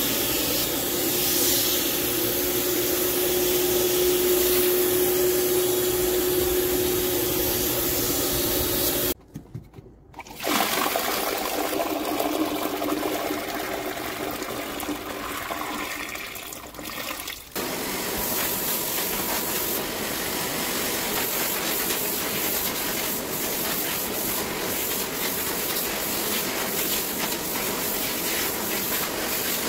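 Hot-water extraction suction through a Sapphire Scientific upholstery tool on fabric: a steady rushing hiss with a held whine. After a short break about nine seconds in, dirty waste water gushes from the extractor's waste hose into a toilet, and the steady suction hiss returns a few seconds later.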